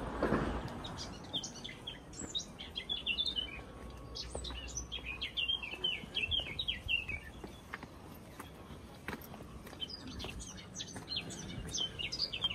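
A small songbird singing: quick runs of short, high chirps, one stretch from about a second in to about seven seconds, and another from about ten seconds.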